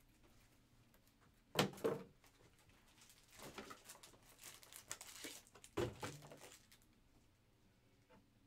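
Two sharp knocks close together, then plastic packaging crinkling as it is handled, with another knock partway through.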